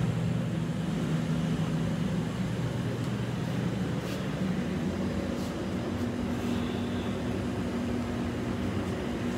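Steady low mechanical hum of a commercial kitchen's ventilation and equipment, with a couple of faint taps midway.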